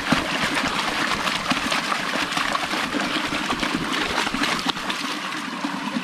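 Stream water rushing and splashing over a hiking boot held in a small rocky cascade, washing red mud off it.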